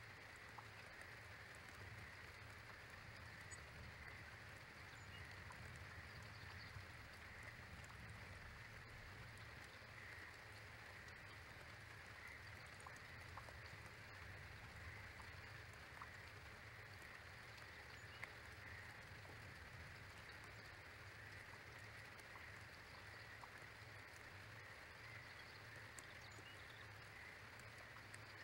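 Near silence: faint steady outdoor hiss with a low hum and a few scattered faint ticks.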